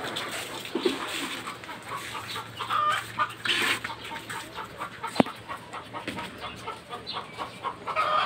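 Chickens clucking, with a single sharp knock about five seconds in.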